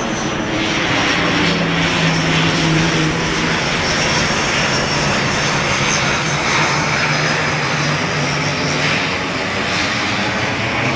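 Twin-engine turboprop airliner passing overhead: a steady engine and propeller drone with a thin high whine above it, swelling a little in the middle as it goes by.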